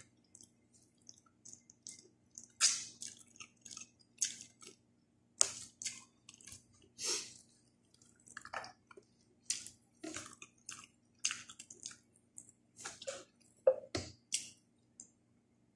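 Close-miked eating sounds: wet chewing and lip smacks in short, irregular bursts as food is eaten by hand. A brief, louder knock comes near the end.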